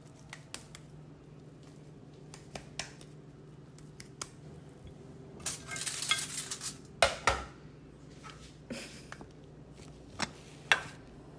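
A metal spoon clinking and scraping against a stainless steel mixing bowl while corn-flour dough is worked, with a handful of sharp clinks spread out and a longer scrape just past the middle. A faint steady low hum lies underneath.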